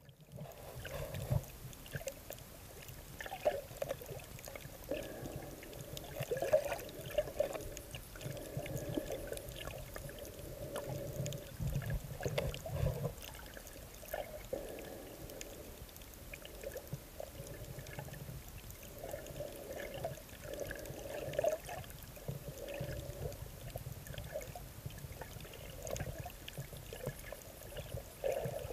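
Underwater recording: water swishing and bubbling around the camera in uneven surges every second or two, with scattered sharp clicks.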